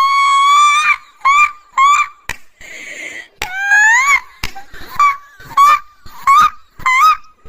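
A woman's forced, fake laugh: a string of about eight high-pitched squealing bursts that slide up and down in pitch, broken by short gaps and breaths.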